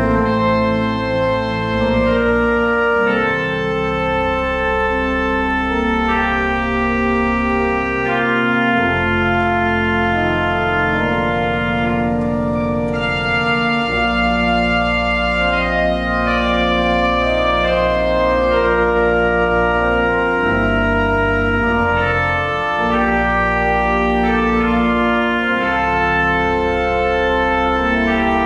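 Organ playing sustained chords over deep held bass notes, the harmony changing every second or two.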